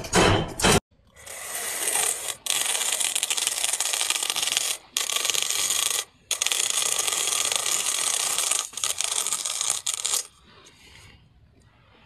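Handheld spiral slicer's blade cutting through a green fruit as it is twisted along the screw: a steady cutting noise in long runs with a few short breaks, choppier near the end, then stopping. Before that, in the first second, a quick run of loud knocks.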